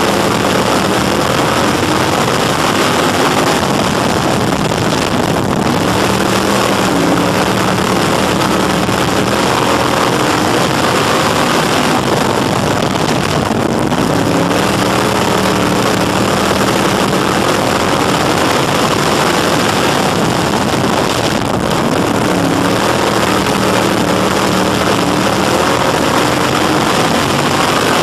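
Crate Sportsman dirt-track race car's V8 engine running hard at race speed, heard from inside the cockpit over a dense rush of noise. It eases off briefly three times, about eight seconds apart, as it lifts for the turns, then pulls back up on the straights.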